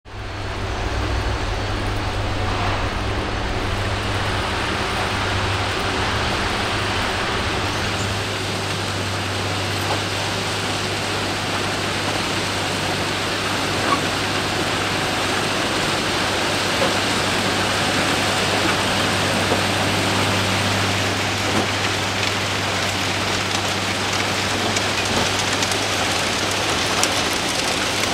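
Railway track maintenance machine working: a steady low engine hum under a dense, even hiss, with a few faint clicks. The low hum drops away near the end.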